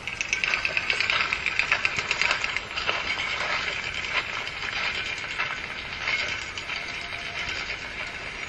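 Dense, rapid mechanical clicking and crackling, ratchet-like, a little louder in the first two seconds.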